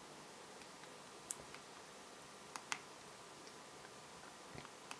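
A few faint, short clicks of the HTC HD2's hardware buttons being pressed to move the highlight through the MAGLDR boot menu toward AD Recovery: one about a second in, a quick pair in the middle, and one near the end.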